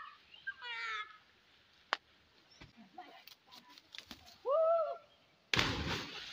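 A person jumps into a river: a short vocal whoop, then a sudden loud splash about five and a half seconds in, the water hissing as it settles.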